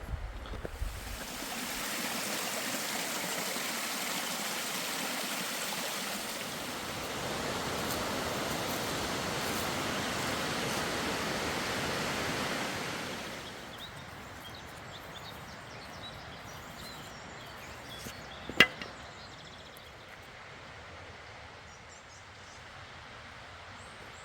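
Rushing stream water, a steady even hiss, which drops away about thirteen seconds in to a quieter outdoor background with faint high chirps. One sharp click about eighteen and a half seconds in.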